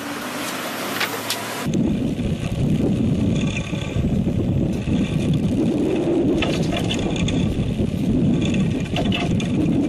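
Boat noise at sea: a brief hissy wash, then from about two seconds in a steady, louder low rumble of a fishing boat's engine with wind and water, and a few faint clicks.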